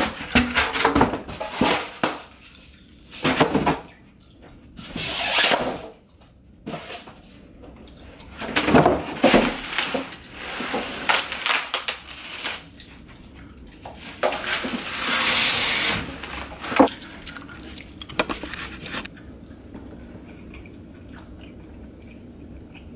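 Unpacking a boxed flat-pack desk: knocks, clatter and rustling of parts and packaging being handled, with two longer noisy rushes about 5 and 15 seconds in, and quieter for the last few seconds.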